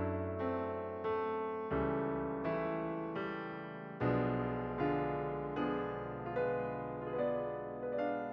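Background piano music: notes and chords struck a little more than once a second, each ringing away before the next.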